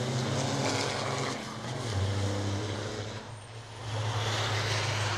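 Racing trucks' diesel engines running at speed as a pack passes on the circuit; the engine sound dips briefly about three seconds in, then rises again.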